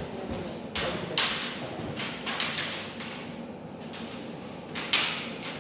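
Sparse light clacks and shuffles from a kendo face-off: bamboo shinai tips tapping together and bare feet sliding on a wooden floor. The sharpest clack comes about a second in, a few more come in quick succession around the middle, and one more near the end.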